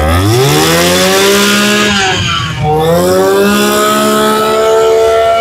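Kawasaki TG20 20cc two-stroke brush cutter engine revved to full throttle and held, easing off about two and a half seconds in, then revved up and held high again.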